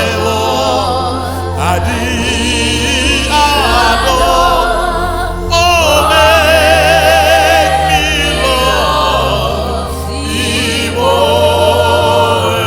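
Gospel worship music: long, wavering sung notes with no clear words over accompaniment with a sustained bass that shifts note every few seconds.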